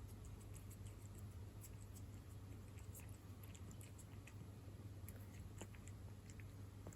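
A cat chewing wet cat food in jelly: faint, scattered small wet clicks and smacks of its mouth, over a steady low hum.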